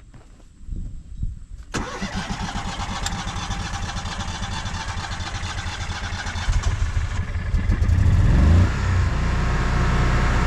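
Kohler home standby generator engine cranking briefly, catching about two seconds in and starting up, then running. It grows louder for a couple of seconds before settling into a steady run near the end.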